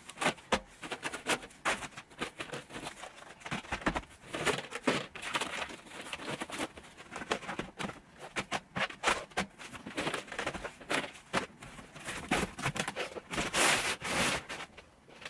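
Plastic DVD and game cases clicking and clacking against each other as they are handled and stacked into a cardboard box, in quick irregular knocks. A longer, louder rustle comes near the end.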